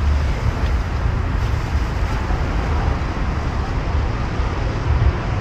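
Steady road traffic noise with a strong low rumble.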